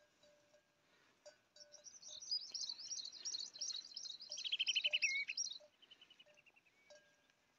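Small birds chirping and calling: a quick run of high chirps from about two seconds in until just past the middle, with a falling trill near the middle, then a softer string of short notes.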